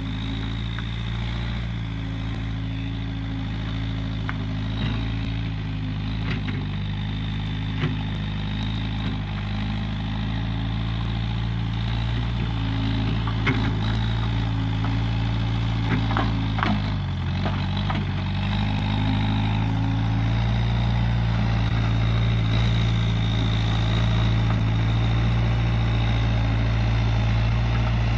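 Case 580G backhoe loader's diesel engine running steadily, with a few sharp knocks and clanks in the middle. The engine gets slightly louder in the last third.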